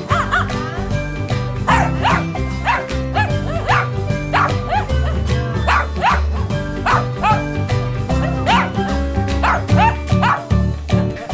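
A Shih Tzu barking in repeated short, high yaps, about two a second, over background music.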